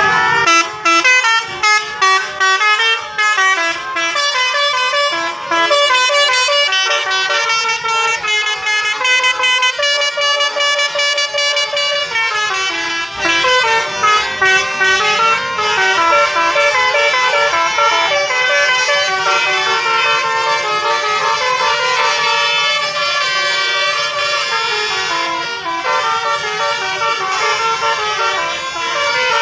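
Bus telolet horns, the multi-note musical air horns fitted to Indonesian buses, sounding loudly and playing fast runs of changing notes. The first few seconds are short choppy blasts, and after that the notes run on steadily.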